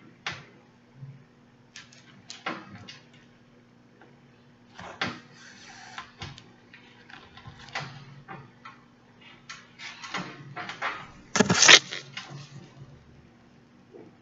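Irregular rustling and scraping strokes as hair wefts are hand-sewn onto a mesh wig cap with needle and thread, hands handling the cap and pulling the thread through. The loudest stroke comes about three quarters of the way in.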